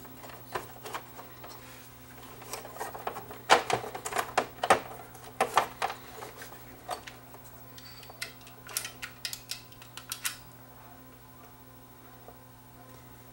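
Hot glue gun's trigger clicking and small plastic knocks as a circuit board is pressed down and glued into a plastic housing, in scattered clusters of sharp clicks over a faint steady low hum.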